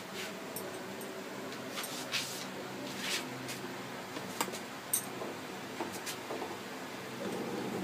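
Steel kitchenware handled as a colander is set out for straining boiled potato strips: scattered light clicks and knocks, the loudest about five seconds in, over a steady low hum.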